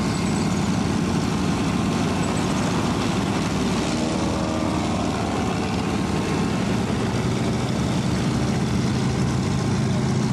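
Propeller-driven triplanes' piston engines droning steadily in flight.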